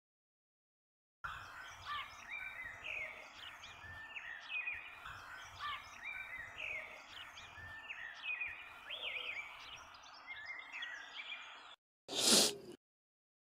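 Outdoor ambience of many small birds chirping and singing over faint background noise, cutting off abruptly near the end. Just after it comes a brief, loud burst of noise, about half a second long.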